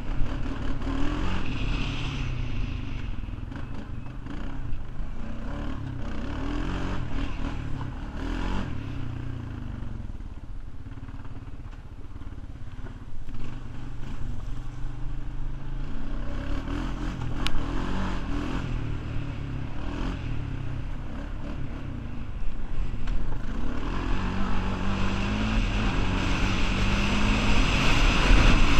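Honda 420 ATV's single-cylinder four-stroke engine running under way, its pitch rising and falling with the throttle, settling into a steadier climb near the end.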